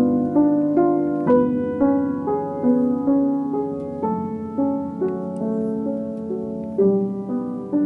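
A c.1920 Berlin-made Matz overstrung upright piano being played in slow, even broken chords, a new note about every half second over longer-held bass notes.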